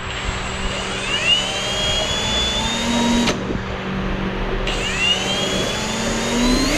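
Power drill running twice, each time with a whine that rises in pitch as the motor speeds up, then holds and stops. A steady low hum runs underneath.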